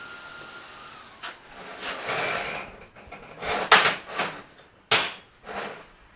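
Steel workpieces and tools knocked and clattered on a welding table: about half a dozen sharp metal knocks and clanks, two of them much louder than the rest. A steady hiss cuts off about a second in.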